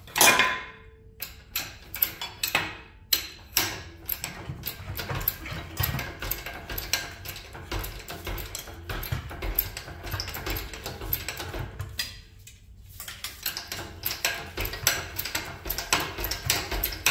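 Metal clanking and knocking as a small diesel engine hanging from a hoist is worked loose from its bolted-on generator: one sharp clank at the start, then a quick, uneven clatter of knocks that pauses briefly near the three-quarter mark.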